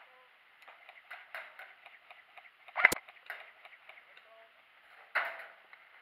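Single sharp crack of an airsoft rifle shot about three seconds in, with scattered ticks and rustles of movement and gear around it, and a second, duller crack about two seconds later.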